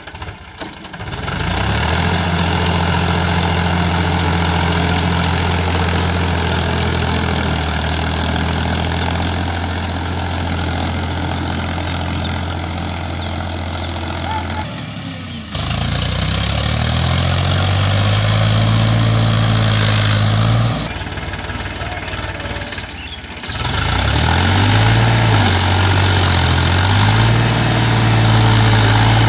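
Powertrac Euro 50 tractor's three-cylinder diesel engine running under load while it drives a rotavator through deep mud. The engine note is steady at first, then jumps abruptly twice and rises and falls as the engine labours.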